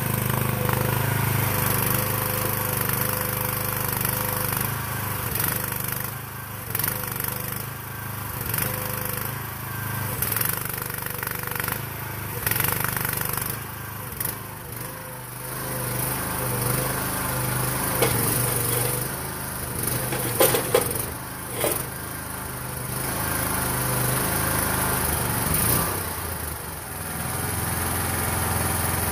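2023 AGROTK QS12R mini excavator's small engine running under load as the machine is driven on its tracks and slewed, the engine note rising and falling as the controls are worked. A couple of sharp knocks come about twenty seconds in.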